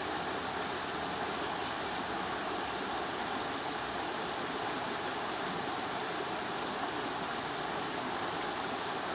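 Steady rushing of a shallow river flowing over a stony riffle.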